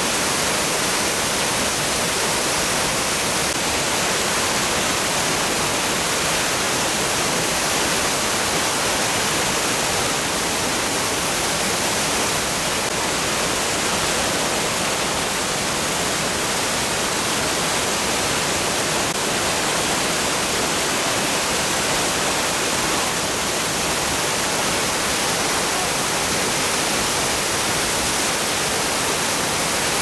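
Large waterfall in heavy flow plunging into its pool: a steady, even rush of falling water.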